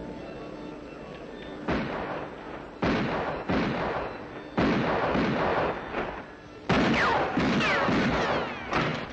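Cartoon shotgun blasts fired in a chase: four loud shots one to two seconds apart, each dying away, with falling whistling tones after the last.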